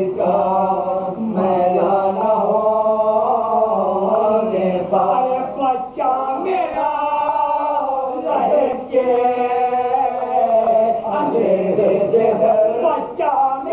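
Several men singing an Urdu marsiya together in soz-khwani style, without instruments, on long, wavering held notes broken by short pauses between phrases.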